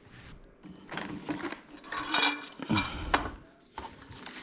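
Light clinks, knocks and rustling as a new garbage disposal unit and its parts are handled.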